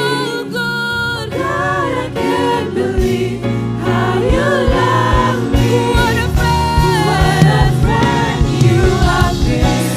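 Gospel worship song sung by a choir with a live band, with several voices singing over steady bass and drums.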